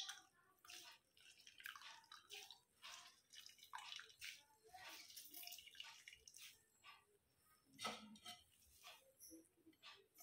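Water dripping and trickling back into a glass bowl as handfuls of washed, grated bottle gourd are squeezed out by hand. It comes as faint, irregular spatters.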